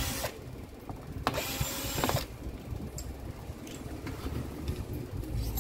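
Cordless drill-driver backing out the screw that holds a demolition hammer's tool retainer plate: a brief whir, then a longer run of about a second, over a steady low hum.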